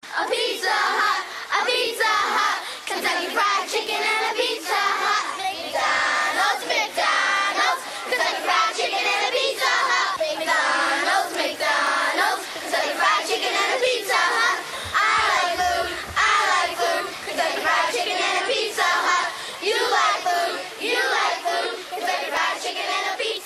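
A group of children singing together, a continuous crowd of young voices.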